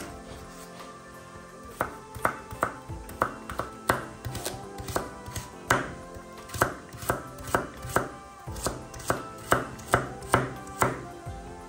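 A kitchen knife chopping food on a cutting board, about two sharp cuts a second, starting about two seconds in.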